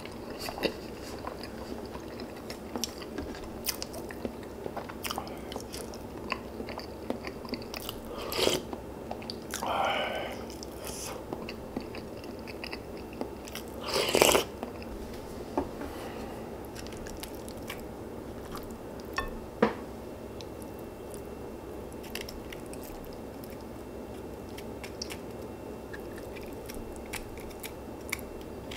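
Close-miked eating: chewing, biting and crunching with many small wet clicks. A few louder bursts stand out, the loudest about halfway through.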